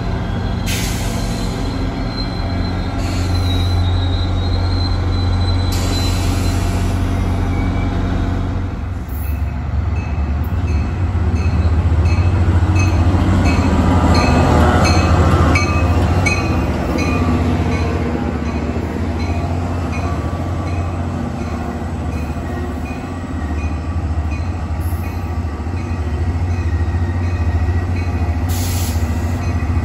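Diesel train at close range: the locomotive's engine runs with a steady low drone, with short bursts of air hissing. Wheel and rail noise swells in the middle with some squeal, and a high tone repeats about twice a second through the second half.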